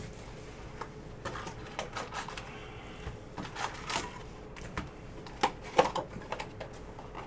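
Crinkling foil wrappers of trading-card packs and the cardboard of a hobby box being handled, as packs are pulled out and set down: an irregular run of short crackles and taps.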